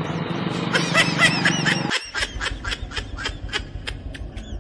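Several men laughing in short repeated bursts, over a steady low engine hum that cuts off suddenly about two seconds in.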